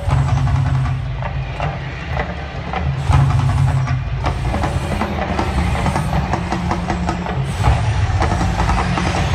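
Mirage volcano show eruption: a deep rumble in rolling pulses, with many sharp crackles and knocks from the show's sound system and gas fireballs.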